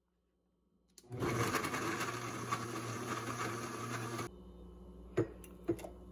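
Countertop blender clicked on about a second in and running steadily at full power as it purées frozen fruit and banana with water and juice into a smoothie, then stopping abruptly. Two sharp knocks follow near the end.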